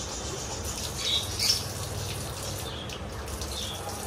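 Water from a bathroom tap running while a man splashes it onto his face, with a few short high squeaky sounds about a second in and again near the end.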